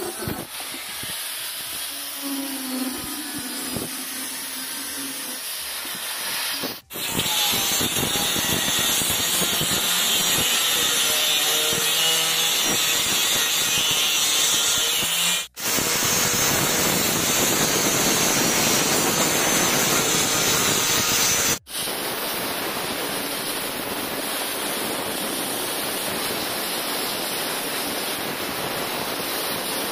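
Handheld electric angle grinder running with its abrasive disc grinding on a small steel piece: a steady loud hiss with a high whine. It breaks off sharply for an instant three times and picks up again at a slightly different level.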